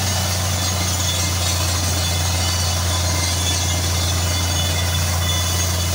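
Water-well drilling rig's engine running steadily, a constant low drone, under the even hiss of water spraying up out of the borehole as the well is blown out.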